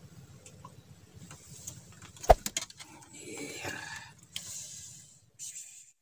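Handling noise close to the microphone: one sharp click about two seconds in, then a few quicker clicks and some rustling.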